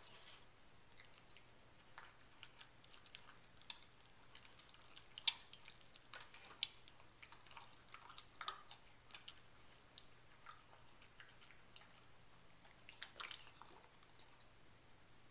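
Dog eating from a stainless steel bowl: faint, irregular chewing and mouth clicks, the sharpest about five and six and a half seconds in.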